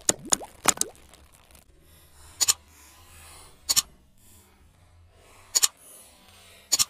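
Mouse-click sound effects of a subscribe-button animation: four sharp single clicks spaced about one and a half seconds apart, after a quick cluster of clicks and short sliding tones in the first second.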